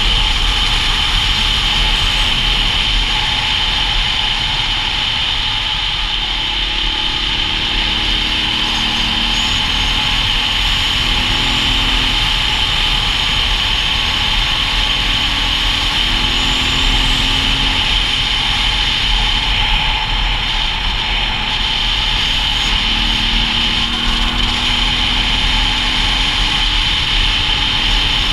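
A dual-sport motorcycle riding along a road: a steady drone of engine and rushing wind, with the engine note wavering a little now and then.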